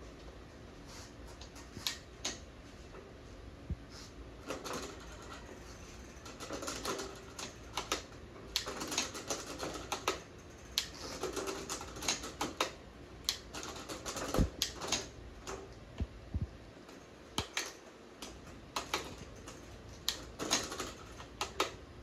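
Irregular sharp clicks and short bouts of light metal clatter and scraping from hand work on a bicycle, tools and parts being handled during a repair.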